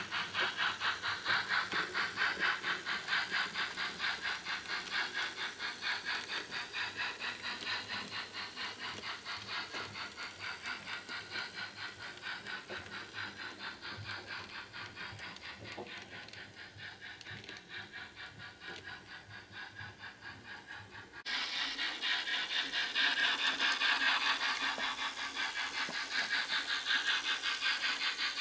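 H0-scale model G 4/5 steam locomotive running with its sound decoder playing steam exhaust chuffs and hiss through its small speaker, a fast even beat. It grows fainter as the train moves away, then is louder again from about 21 seconds in.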